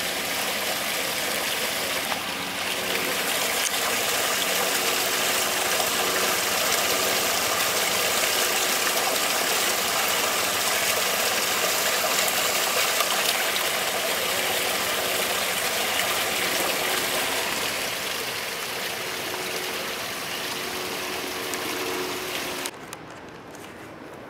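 Steady rush of running water, as of water flowing in a storm drain beneath its cast-iron grate, with a faint hum under it. It drops abruptly to a much quieter background near the end.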